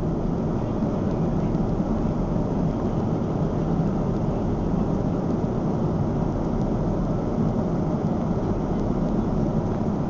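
Airliner cabin noise in flight: a steady low rumble of engines and rushing air, heard from inside the cabin.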